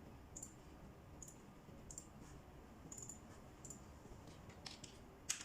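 Computer keyboard keys pressed to enter a KVM-switch hotkey, heard as faint, separate clicks about a second apart. A quicker run of clicks follows near the end, the loudest just before it ends.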